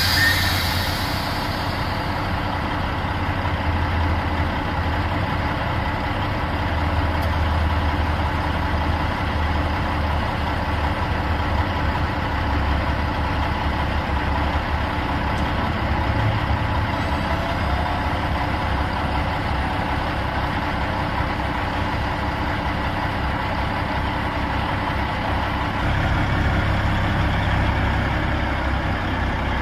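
Caterpillar 3406E six-cylinder diesel in a 1999 Peterbilt 378 semi truck idling steadily, a low rumble that gets a little louder near the end.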